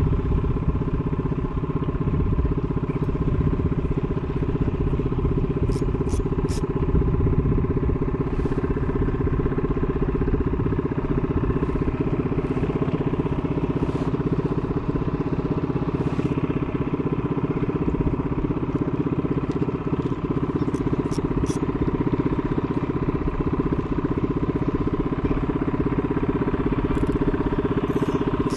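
Boat engine running at a steady, even drone, with a few faint ticks over it.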